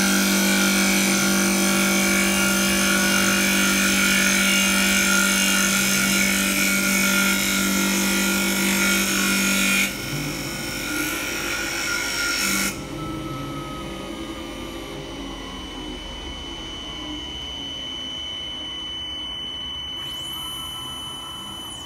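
KC1530 CNC wood-turning lathe with double blades cutting a spinning wooden spindle: a loud, steady machine hum with the hiss of the blades shaving wood. About ten seconds in the cutting stops abruptly. A few seconds later the level drops again and the spindle winds down with a slowly falling whine.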